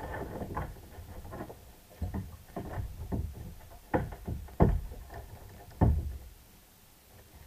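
Irregular knocks and bumps on a kayak, with handling noise in between; the sharpest thumps come about four, four and a half and six seconds in.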